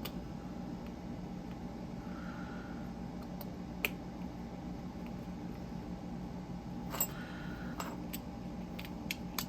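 A few light clicks and faint scrapes of small parts being handled and fitted as a telephone-dial fidget toy is put back together, over a steady low hum.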